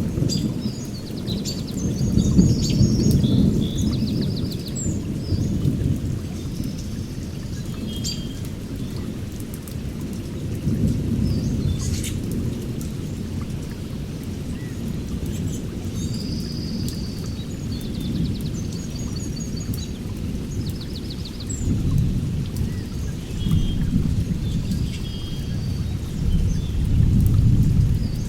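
Thunderstorm with steady rain and low rolling thunder that rumbles on and swells several times, around two, eleven, twenty-two and twenty-seven seconds in.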